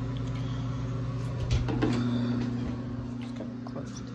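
A few short knocks and clicks about a second and a half in, over a steady low hum.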